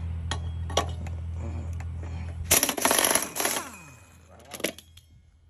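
Central Pneumatic 1/2-inch air impact wrench, on power setting four, hammering on a lawnmower blade bolt in a loud rapid-fire burst of about a second, then winding down with a falling pitch. A steady low hum runs beneath until the hammering starts.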